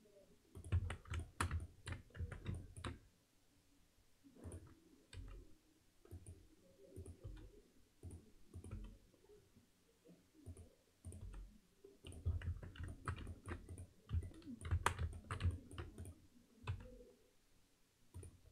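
Computer keyboard keys and mouse buttons clicking in irregular clusters, busiest in the first few seconds and again about two-thirds of the way through, with quieter stretches of soft desk thuds between.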